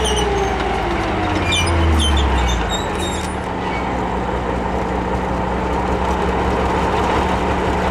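Chieftain tank's Leyland L60 two-stroke diesel engine running as the tank moves slowly on a dirt track. A whine falls in pitch over the first couple of seconds, then the engine settles to a steady note, with a few short high squeaks early on.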